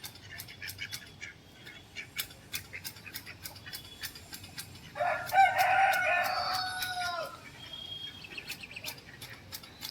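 Rooster crowing once, a single long call about five seconds in that drops in pitch as it ends, over a steady run of faint sharp clicks.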